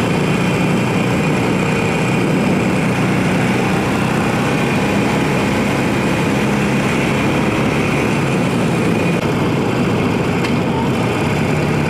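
Harley-Davidson Sportster Roadster 1200's air-cooled V-twin running steadily through its stock exhaust while being ridden, heard under steady wind noise.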